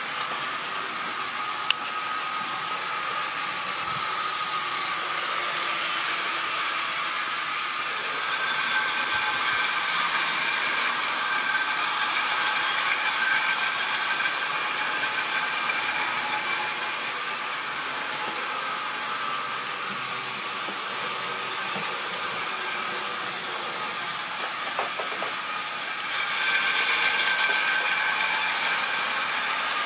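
Model railway locomotive's small electric motor whining steadily and its wagons' wheels rattling on the track as a train of tank wagons runs around the layout. It gets louder twice, at about eight seconds in and again near the end, as the train passes close.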